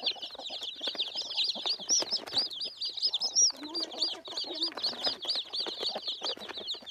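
A cageful of young chicks peeping nonstop, many high-pitched peeps overlapping one another.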